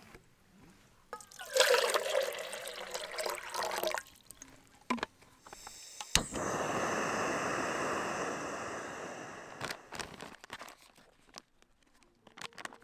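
Water pouring for a couple of seconds, then a sharp click and a canister gas stove's burner hissing steadily for about three and a half seconds before it stops. Scattered crinkly clicks follow as a foil food pouch is handled and opened.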